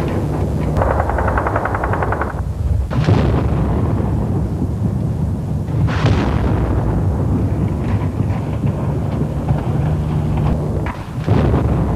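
Shelling and gunfire echoing over a stone town: a short stretch of rapid cracks near the start, sharp reports about three and six seconds in that ring on, and another near the end, over a constant low rumble.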